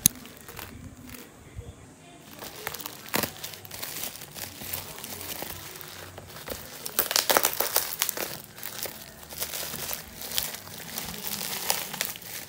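Plastic bubble wrap crinkling and crackling as a wrapped package is handled by hand, in irregular rustles and crackles that are busiest in the second half.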